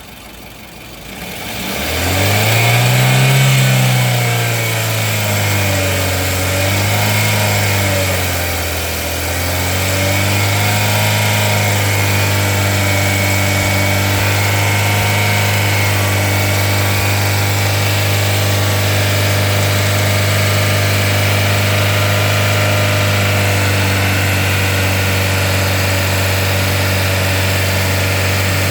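Car engine revved up and down twice, then held steady at raised revs, in the 2,000–3,000 rpm range where the owner reports a knock, before dropping back near the end.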